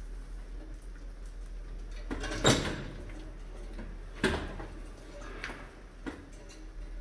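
Mice clambering on a homemade trap of beer cans threaded on a wire rod over a glass tank: two loud knocks, about two and a half and four and a quarter seconds in, among lighter clicks and scratches.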